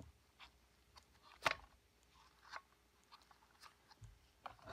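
Scattered light clicks and gritty scrapes, with one sharp click about a second and a half in, as the plastic impeller of a Stihl SH86C shredder vac is turned by hand inside its dirt-caked housing.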